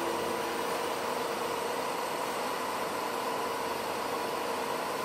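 Vertical wheel lathe turning a railway wheel during refurbishment: a steady machining noise with a constant whine.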